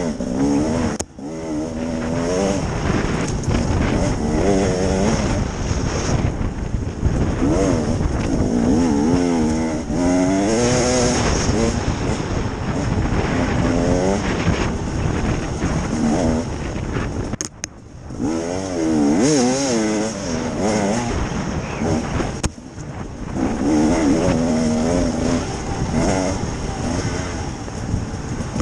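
KTM EXC 300 two-stroke enduro motorcycle engine being ridden hard, its pitch rising and falling constantly with the throttle. The sound dips briefly where the throttle is shut, about a second in and twice in the second half.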